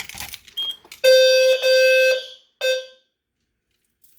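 System Sensor low-frequency horn strobe sounding a short blast of about a second and a half, then one brief chirp, after a couple of clicks from the pull station's key. It is a low, buzzy tone near 520 Hz: the short walk-test sounding that confirms the activated pull station.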